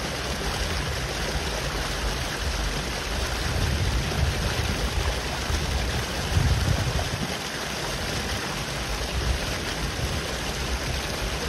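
Steady rushing noise of flowing river water, with wind buffeting the microphone in gusts that rise and fall as a low rumble.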